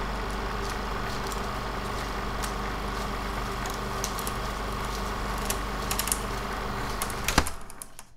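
Car engine idling steadily, with a few light ticks and one sharp click near the end.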